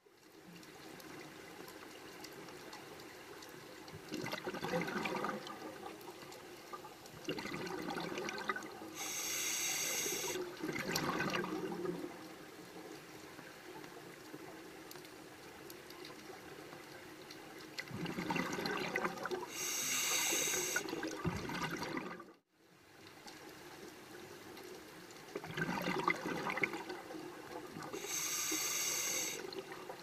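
Scuba diver breathing through a regulator underwater: three breaths about nine seconds apart, each a rush of regulator airflow and exhaled bubbles over a steady background hiss.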